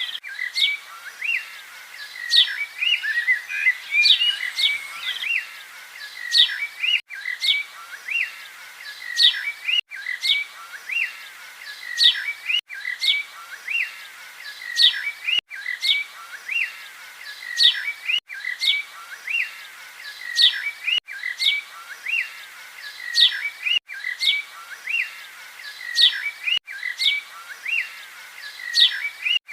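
Small birds chirping and calling, a short recording looped over and over, with a brief cut about every three seconds where the loop joins. There is no low rumble.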